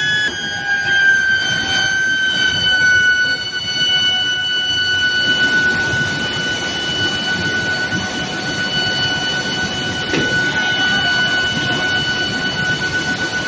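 High, steady electrical whine of an induction heating furnace running on a steel billet reheating line, gliding slightly down in pitch over the first few seconds and then holding, over a continuous mechanical rumble.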